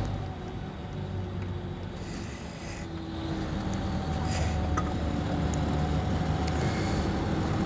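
Mercedes-Benz Intouro M coach's diesel engine idling steadily while the bus stands still, with a thin steady whine above the low engine note.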